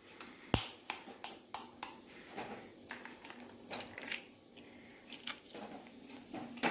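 Eggs being cracked into a bowl: a string of irregular sharp taps and clicks of shell, with a deeper knock about half a second in.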